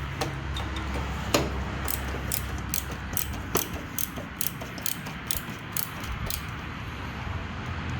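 Ratchet socket wrench clicking steadily, about two to three clicks a second, as it runs a nut down onto a hood latch bolt.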